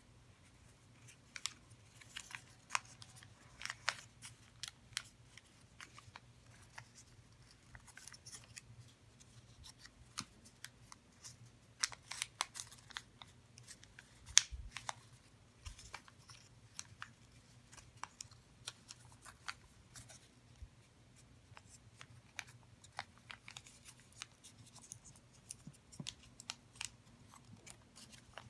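Sheet of origami paper crinkling and crackling in irregular sharp rustles as it is folded and creased by hand into a dragon. A single louder knock comes about halfway through, over a faint steady low hum.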